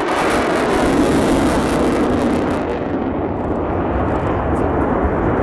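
F-15J Eagle fighter's twin F100 turbofan engines running at high power in flight, a loud jet noise. The high hiss drops away about three seconds in, leaving the deeper noise.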